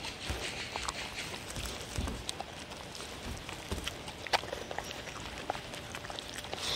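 Two puppies licking and chewing food scraps off a paper plate: irregular wet clicks and taps of tongues and muzzles against the plate, with a couple of dull bumps.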